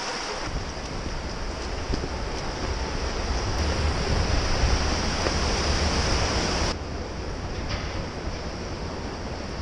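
Rushing creek water, a steady hiss, with a low rumble on the microphone underneath; the noise eases a little about seven seconds in.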